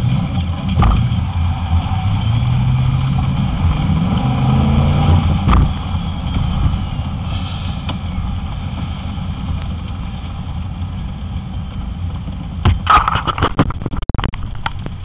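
Corvette engine running hard through an autocross course, its pitch climbing as it accelerates a few seconds in, with a sharp knock partway through, then easing off. Near the end come a cluster of sharp clicks and knocks.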